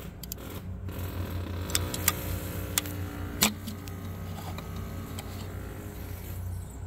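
A few sharp clicks and knocks from handling a tube of roof sealant and tools on the metal roof flashing, over a steady low hum. A droning hum with several pitches swells and fades in the middle, like a passing vehicle's engine.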